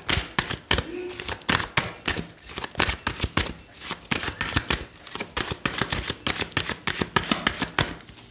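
A deck of tarot cards being shuffled by hand: a quick, uneven run of card snaps and flicks, several a second, stopping just before the end.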